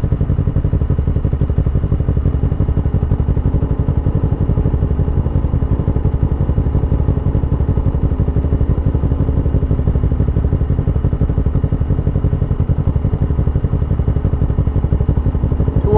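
Honda CBR125R's single-cylinder four-stroke engine running at steady revs while the motorcycle cruises, with a heavy low rumble under it.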